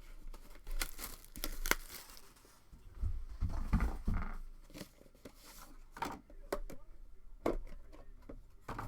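Plastic wrapping crinkling and tearing as a trading card box is opened by hand, in irregular crackles and rustles with a denser stretch of handling in the middle.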